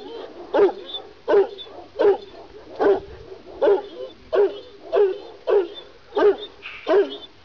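Kangal shepherd dog barking over and over at a steady pace, about three barks every two seconds.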